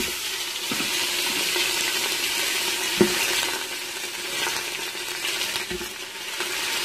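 Cooked chicken bones and skin sizzling steadily in hot oil in an Instant Pot's stainless steel inner pot on the sauté setting. There is a knock at the start and another about three seconds in.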